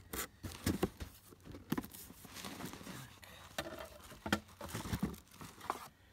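Clear plastic wrapping crinkling and a cardboard box rustling and knocking, with scattered irregular thumps, as a bagged chainsaw is lifted out of its box; the handling noise stops shortly before the end.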